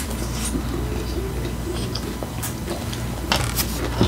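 Close-miked sounds of eating taco salad: scattered soft clicks from the mouth and utensils, with a few sharper clicks about three and a half seconds in, over a steady low hum.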